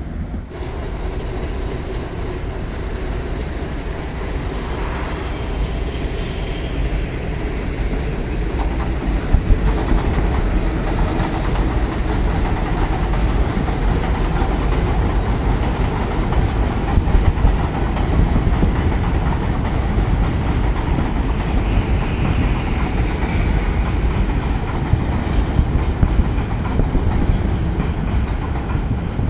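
R188 subway train on the elevated (7) Flushing Line running past, a steady rumble with the clatter of wheels over rail joints. It grows louder over the first ten seconds or so as the train comes near. Brief high wheel squeals come twice.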